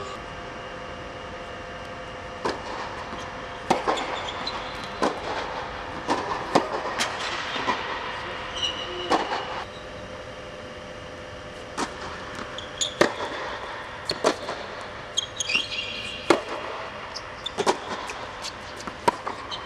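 Tennis rally on an indoor hard court: sharp pops of the racket striking the ball and the ball bouncing, at irregular intervals with a pause of about two seconds midway, plus a few short squeaks of tennis shoes, over a steady mechanical hum.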